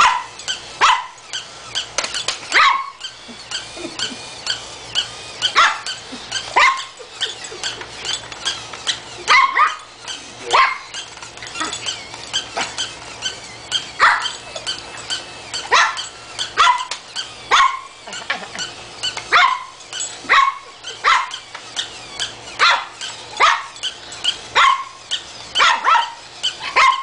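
Repeated short dog barks, roughly one a second and some in pairs, from a battery-powered barking, jumping plush toy dog and a small Brussels Griffon barking back at it.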